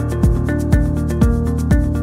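Background electronic music with a steady beat: a kick drum about twice a second under sustained synth chords.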